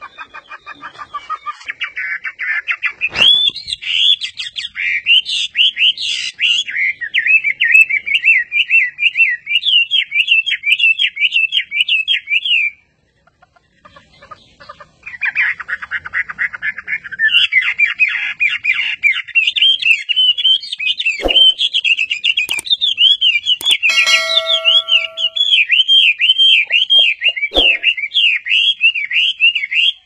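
Chinese hwamei (melodious laughingthrush) singing a long, loud run of rapid, varied warbling phrases, the continuous 'gacor' song kept in a fighter bird. The song breaks off for about two seconds in the middle and then resumes, with a few soft knocks in the background.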